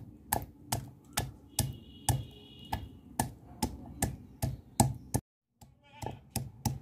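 Ginger being crushed on a shil-nora, a flat stone slab with a stone pestle: steady knocks of stone on stone, about two and a half a second, with a brief break about five seconds in.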